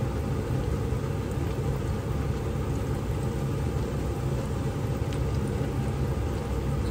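Hot oil sizzling steadily around battered corn dogs shallow-frying in a pan, over a steady low rumble, with a few faint ticks.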